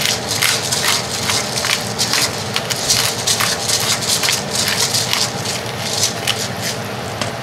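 Pepper mill grinding peppercorns: a dense, irregular run of crunching clicks.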